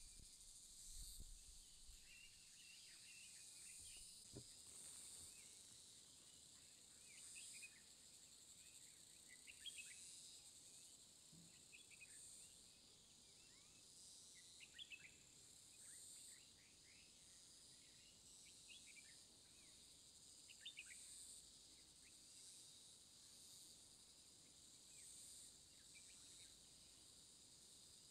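Faint outdoor ambience: a steady, high-pitched chorus of insects that swells in and out every second or two, with short bird chirps scattered throughout.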